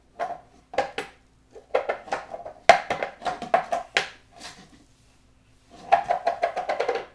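A cat bowl being pushed and knocked about on a tile floor by a baby's hands, clattering and scraping with a slight ring. The strikes come in quick runs, densest around the middle and again near the end, like a rattling wobble.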